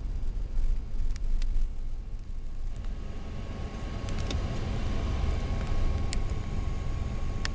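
Road and engine noise heard from inside a moving car: a continuous low rumble. A few light clicks sound over it, and a faint steady whine comes in about three seconds in.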